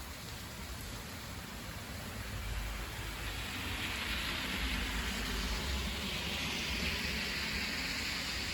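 Rain falling in a thunderstorm, a steady hiss with a low rumble underneath that swells louder about three seconds in.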